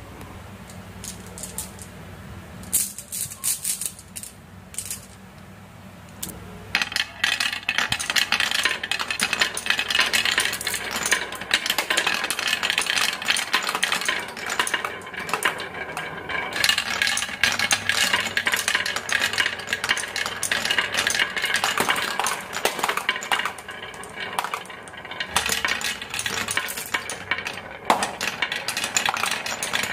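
Marbles rolling and clattering down a HABA marble run. The first few seconds hold only scattered clicks; from about seven seconds in, a dense, continuous clatter of many marbles follows.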